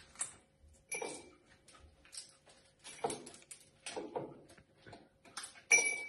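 Lego-shaped ice cubes dropped one at a time into a glass, each landing with a sharp clink; several clinks about a second apart, the loudest near the end.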